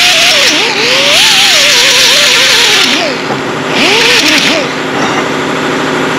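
Pneumatic right-angle die grinder with a small abrasive disc deburring the cut ends of steel tubes: a loud air hiss with a whine that wavers up and down as the disc is pressed against the tube. It stops about 3 s in, runs again in a short burst about a second later, then only a steady machine hum remains.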